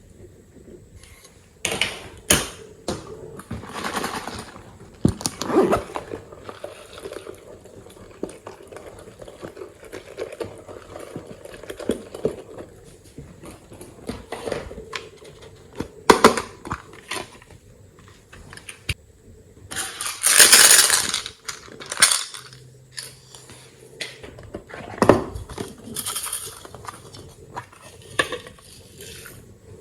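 Slime being mixed and squished, with irregular wet noisy bursts and sharp clicks and clinks; the longest and loudest burst comes about two-thirds of the way through.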